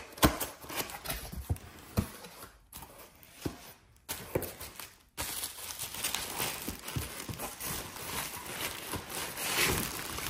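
Cardboard box flaps being pulled open and bubble wrap crinkling as a wrapped stainless steel steamer is handled, with scattered light knocks and taps throughout.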